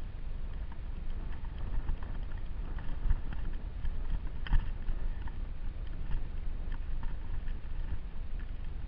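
Footsteps on a dry, stony dirt trail: irregular light scuffs and clicks a couple of times a second, the sharpest about halfway through, over a steady low rumble on the microphone.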